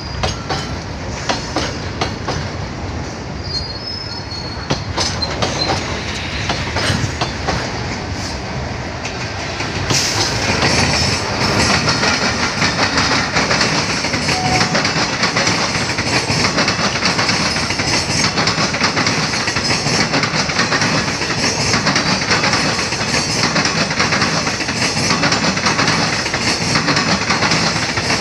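Passenger express train running through a station at speed: wheels clicking over rail joints as it approaches, then about ten seconds in the sound steps up into a loud, steady rumble and hiss as it draws level, with the clickety-clack of the coaches rolling past.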